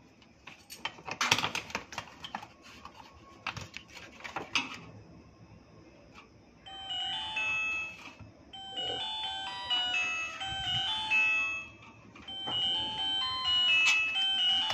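Clicks and knocks of a circuit board being handled in its metal housing, then from about seven seconds in a mobile phone's melodic ringtone plays.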